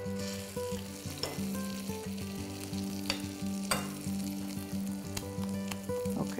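Pork meatball frying in browned butter in a skillet, a steady sizzle, with a few sharp clicks of a metal spoon. Soft guitar music plays underneath.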